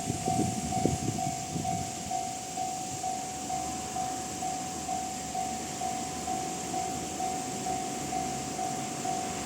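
Japanese level-crossing alarm of the electronic Tohoku type, sounding a steady repeating tone about twice a second, the sign that the crossing is still closed. The rumble of a JR Shikoku 8600 series limited express passing over the crossing dies away in the first second.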